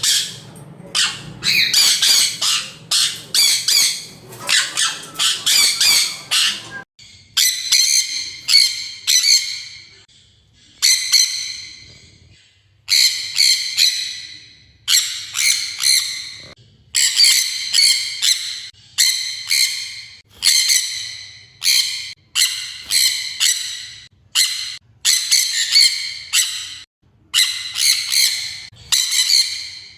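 Parrots squawking loudly: a dense run of harsh, overlapping calls, then from about seven seconds in a long series of separate harsh squawks, roughly one a second, in clusters with short pauses between them.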